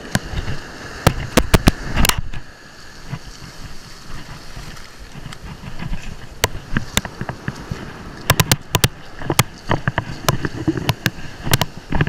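Surf washing up over the sand, with scattered sharp clicks and knocks that come in clusters about a second in and again from about eight to nine seconds in.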